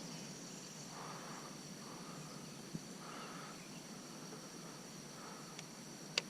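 Faint insect chorus: a steady, high trill that keeps up without a break, with one brief click near the end.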